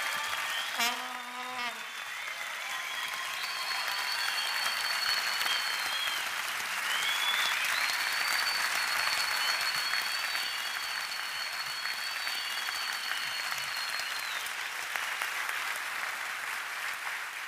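Large audience applauding steadily, with a short shout about a second in and long, high, steady whistles over the clapping through the middle.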